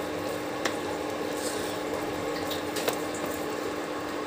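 A spoon stirring a thick, cooking ragda of mashed white peas in a pan, making a wet, bubbling sound. The spoon clicks sharply against the pan twice, over a steady hum from the induction cooktop.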